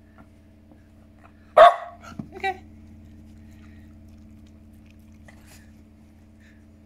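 A puppy barks once sharply, then gives a shorter, higher bark about a second later.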